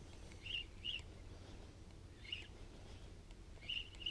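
Short high bird chirps, one or two at a time every second or so, with a quick run of three near the end, over a steady low rumble.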